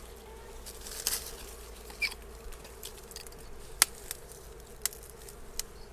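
Dwarf honeybees (Apis florea) buzzing around their disturbed nest, a faint steady hum, with a few scattered sharp clicks and snaps from the branches being cut and handled.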